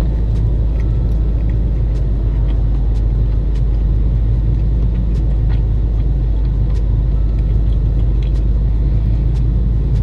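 Steady low rumble of a car running while parked, heard inside the cabin, with a few faint clicks.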